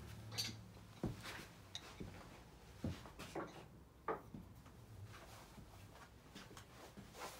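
Faint, scattered clicks and light knocks of a steel chisel and other hand tools being handled at a workbench.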